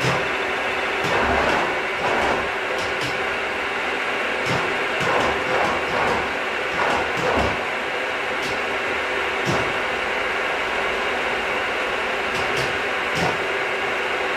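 Milling machine running under cut on steel, a steady spindle and motor hum with irregular louder scraping bursts and clicks from the cutter and chips.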